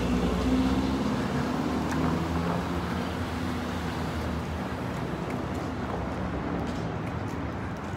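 Downtown street traffic: a vehicle's engine hum, strongest in the first few seconds and slowly fading, over steady road traffic noise.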